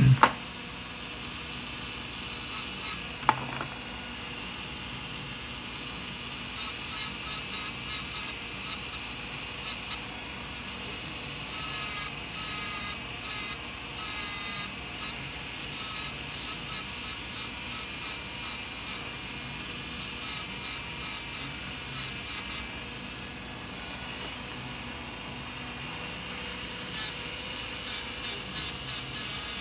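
NSK low-speed dental handpiece spinning a pink abrasive finishing disc with a steady high whine. The disc is being run over the front surface of a restored model front tooth to flatten it.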